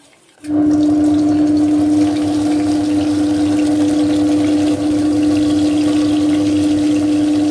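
Electric kitchen mixer grinder motor running at full speed, a loud steady high hum that switches on abruptly about half a second in and runs for about seven seconds.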